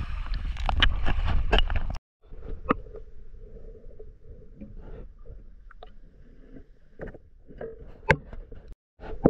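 Water sloshing and handling knocks from a camera held over a shallow river while a caught fish is held up on a line; after a cut about two seconds in, muffled underwater sound from the submerged camera, with a faint steady hum and scattered knocks and clicks.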